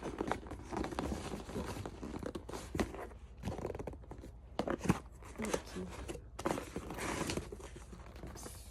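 A package being torn open and handled by hand: irregular tearing, crinkling and small knocks of packaging.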